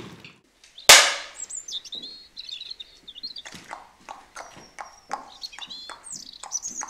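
Songbirds chirping and twittering over an even clip-clop of horse hooves, with one sharp loud hit about a second in.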